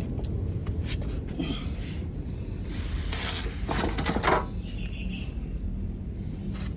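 Handling noises from work on the motorcycle: scattered clicks, a rustle about three seconds in and a short clatter about four seconds in, over a steady low rumble.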